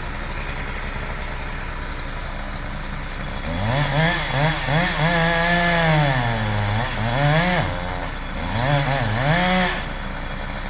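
Chainsaw engine idling, then throttled up about three and a half seconds in. It runs hard for about six seconds, its pitch dipping and recovering several times, then drops back to idle near the end.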